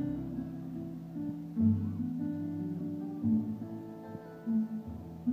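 Music with strummed acoustic guitar: the skater's solo music.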